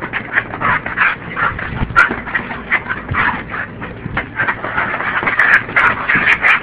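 Pit bull making rapid, irregular short vocal noises right at the microphone while play-wrestling, with a few sharp clicks near the middle and toward the end.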